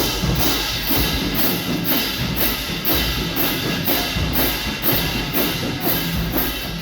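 Marching band playing, with drums and cymbals keeping an even beat of about two and a half strokes a second under sustained horn parts; the music drops away at the very end.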